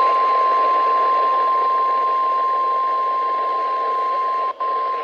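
NOAA Weather Radio 1050 Hz warning alarm tone: one steady, high tone heard through heavy radio static on an over-the-air receiver. It signals that a warning, here a severe thunderstorm warning, is about to be read. The tone and static cut out for a moment near the end, then resume.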